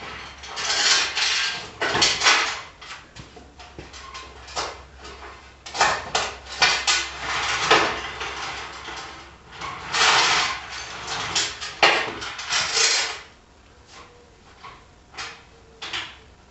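Metal parts and tools clanking and scraping in irregular bursts, with sharp knocks between them. It goes quieter after about 13 seconds, leaving a couple of single knocks.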